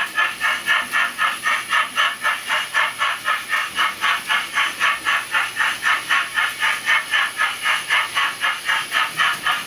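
Model locomotive's sound decoder playing a steady, rhythmic steam-engine chuffing of about four to five beats a second as the loco runs.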